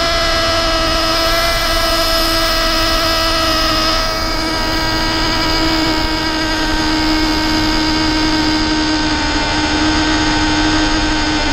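Traxxas Revo nitro RC truck's small two-stroke glow engine running at high, steady revs: a high-pitched buzzing whine that slowly sinks a little in pitch.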